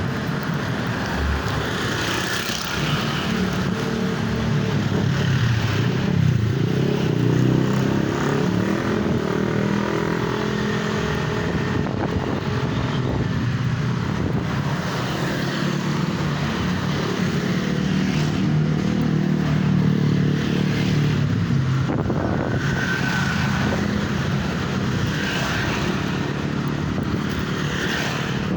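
A motor vehicle's engine running steadily on the move, its pitch drifting up and down with speed, over a constant noisy rush.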